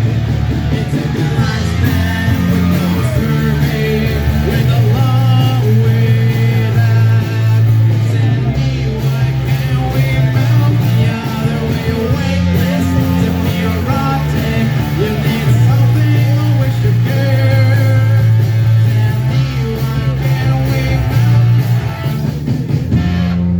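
Live rock band playing loudly: electric guitar over a steady bass line and drums, with a held chord ringing near the end.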